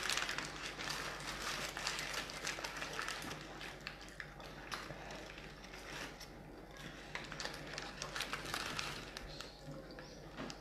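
Faint rustling and crinkling of paper fast-food wrappers and bags, with many small scattered clicks and taps.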